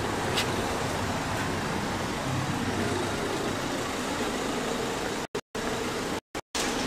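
Steady street traffic noise picked up while walking along a roadside pavement. It cuts out abruptly to silence for a split second several times near the end.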